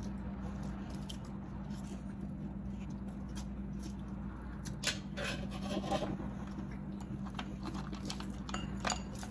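Close-up eating sounds: quiet chewing with a few sharp clicks as sea-snail shells and a fork are handled, over a steady low hum.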